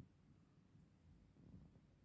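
Near silence: room tone, with a faint soft low thud about one and a half seconds in.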